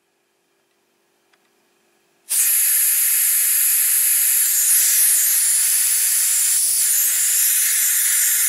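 Compressed air hissing loudly and steadily out of the opened outlet of a homemade air compressor's pressure regulator, starting suddenly about two seconds in. The propane-bottle tank is venting, its pressure dropping as the air escapes.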